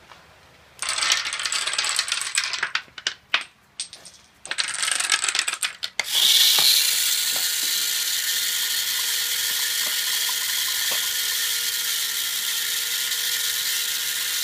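Homemade Rube Goldberg machine running: irregular clattering in loud bursts with short gaps as the dominoes, PVC piece and marble are set going, then about six seconds in a small battery-powered electric motor starts and runs with a steady whine and hiss while water pours from a tipped plastic bottle into a plastic cup.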